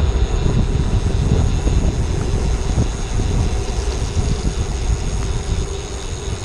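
Wind buffeting the microphone of a handlebar-mounted camera on a road bike moving at speed, a constant low rumble, with tyre and road noise from the wet pavement beneath. It eases slightly near the end as the bike slows for a junction.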